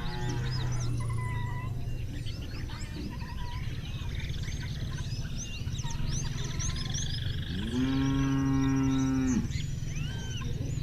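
Cattle mooing: the tail of one low moo in the first half second, then a long moo from about 7.5 to 9.5 s that rises, holds steady and falls away. Birds chirp throughout.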